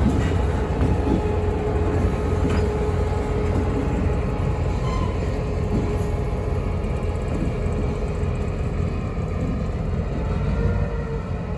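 Freight train rolling slowly past at close range: a steady low rumble of steel wheels on the rails, with a steady whine, and a couple of sharp clicks as wheels cross a rail joint.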